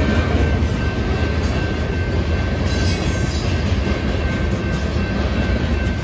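Fast-moving freight train of covered hopper cars rolling past, a loud steady rumble of steel wheels on the rails with a thin steady high tone over it.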